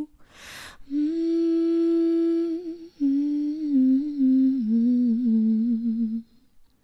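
A woman's voice singing alone without accompaniment. After a breath she holds one long steady note for about two seconds, then sings a wavering phrase that steps down in pitch and stops about six seconds in.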